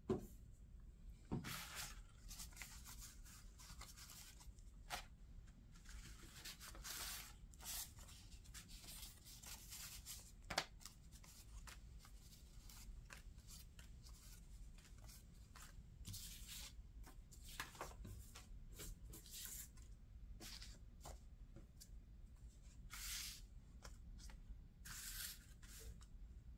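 Loose vintage paper scraps rustling and sliding as hands pick them up and lay them down, a series of soft rustles with a few light taps.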